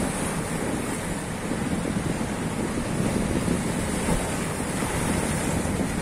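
Sea waves surging and breaking over flat rock slabs, a steady rushing wash, with wind noise on the microphone.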